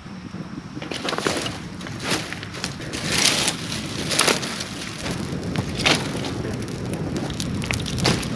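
Campfire of dry kindling and firewood crackling, with sharp pops about once a second over a steady hiss that starts about a second in.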